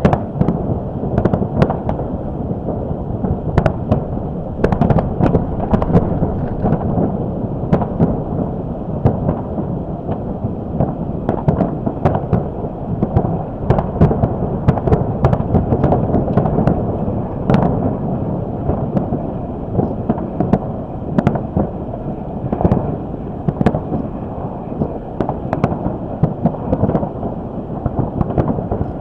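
A fireworks display: many sharp bangs and crackles in quick succession, over a heavy, steady rumble of wind buffeting the microphone.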